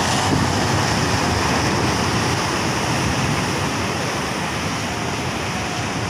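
Sea surf breaking and washing over shoreline rocks: a steady rush of waves, a little louder at the start as a wave breaks and then easing slightly.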